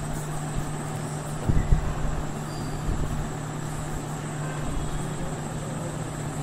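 Steady low electrical hum and a faint high whine over general background noise, with a couple of soft knocks about a second and a half in.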